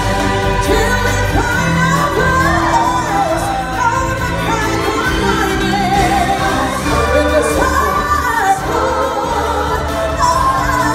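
Live stage-show song: performers' voices singing into microphones over amplified backing music with sustained bass, heard in a large hall.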